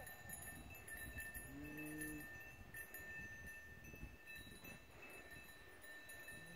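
Faint livestock sounds: a short, low animal call about a second and a half in, with another starting near the end, over a steady high ringing.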